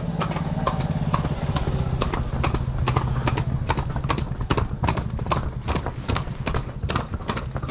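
Two horses' hooves clip-clopping on a concrete lane at a walk: sharp, irregular strikes several times a second.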